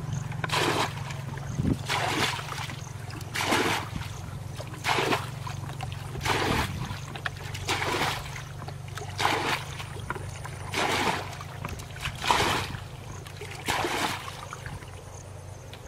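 Water splashing in regular scoops as a plastic basin is dipped into a muddy pond and the water is flung out over a mud bank, about once every second and a half: a shallow pond being bailed out by hand. A steady low hum runs underneath.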